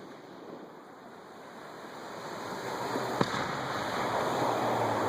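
Aerial fireworks display: a rushing hiss of burning shells that builds up over the last few seconds, with one sharp crack about three seconds in.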